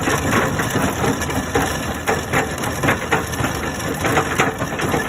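Excavator-mounted hydraulic axial drum cutter grinding into rock, a continuous rough crunching broken by irregular sharper cracks, with the excavator's engine running underneath.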